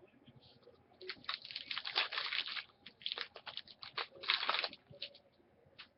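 Crinkling and rustling of trading-card packaging and cards being handled, in two bursts of crackly noise with small clicks, the louder one about four and a half seconds in.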